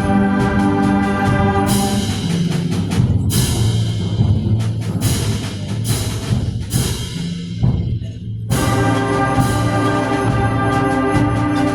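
Concert band playing: a sustained full-band chord, then a lower passage marked by repeated percussion strikes, before the full band comes back in about three quarters of the way through.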